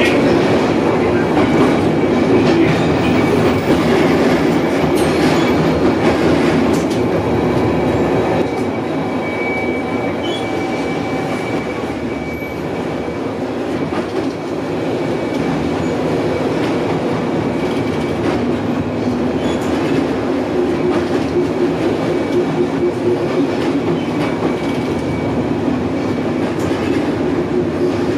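A 1928-type Milan tramcar running along street track, heard from inside the passenger saloon: a steady rumble of wheels on rails with constant rattling and clicking from the old car body, and a thin high steady tone through much of it.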